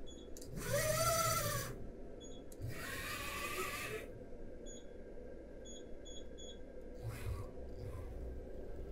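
Z-axis drive of a CNC vertical mill moving the spindle head down in two quick jogs. Each jog is about a second of hiss with a whine that rises and then falls in pitch. After them comes a run of short, high, evenly pitched blips as the handwheel is clicked in fine steps.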